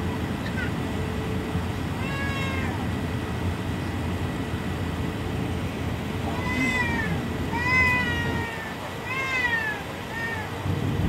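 Steady low rumble of the Airbus A380 cabin while taxiing. Over it come several short, high-pitched, meow-like wailing cries, each rising and then falling in pitch: one a couple of seconds in, then a cluster later on.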